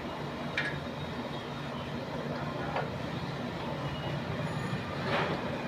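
A few faint clicks of metal parts as a scooter's greased kick-start pinion and spring are worked into the engine casing by hand, over a steady low machine hum.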